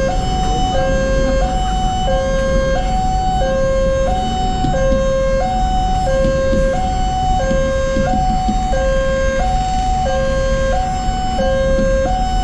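Railway level-crossing warning alarm sounding, an electronic two-tone signal alternating steadily between a lower and a higher note, about a note every two-thirds of a second. It signals that a train is approaching and the crossing is closed. Low traffic rumble runs underneath.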